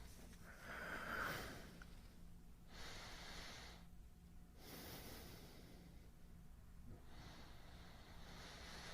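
A man breathing slowly and softly close to the microphone, with several long breaths in and out.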